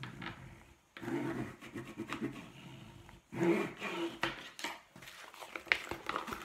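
The back of a spoon rubbed firmly back and forth along the folded edge of a plastic-mesh zipper file bag on a wooden table, a scraping rub in repeated strokes that presses in a crease. Near the end the stiff plastic bag crinkles and clicks as it is lifted.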